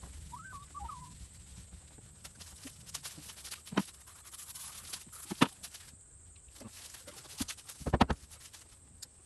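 Scattered knocks and thuds of hands, feet and tools on the wooden outhouse. Two sharp knocks come in the middle, and a cluster of low thumps, the loudest, comes near the end.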